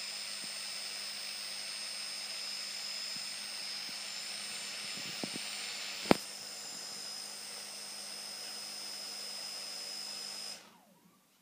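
2200KV brushless outrunner motor spinning its propeller at steady speed: a constant high whine over a low hum, with one sharp click about six seconds in. Near the end the motor stops abruptly, which the owner puts down to the LiPo battery having run down.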